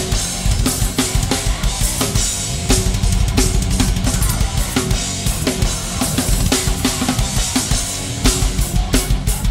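Thrash metal drumming on a full drum kit: fast, continuous bass drum with regular snare hits about three times a second over a steady wash of cymbals.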